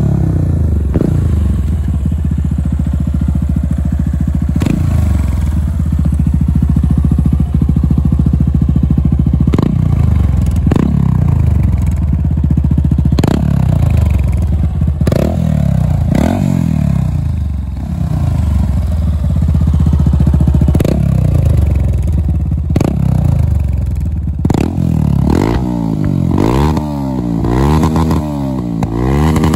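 Yamaha YBR 250's single-cylinder four-stroke engine through an Akrapovic exhaust, ridden hard and repeatedly rising and falling in pitch. Near the end it is revved in quick repeated blips while the bike stands.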